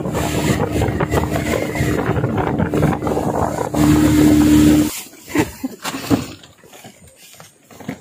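Yamaha 40 hp outboard motor running at speed on a speedboat, its carburettor and diaphragm freshly cleaned. It holds a steady pitch and grows louder just before it stops suddenly about five seconds in, leaving only water splashing.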